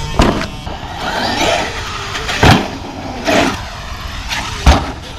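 Traxxas X-Maxx electric RC monster truck being driven hard: its brushless motor whines up and down in bursts, broken by about five hard thumps as the truck lands or strikes the ground. The loudest thumps come about midway and near the end.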